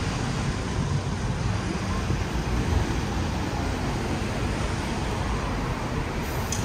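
Mercedes-Benz city bus running as it draws up to a stop alongside, over a steady low rumble of street traffic.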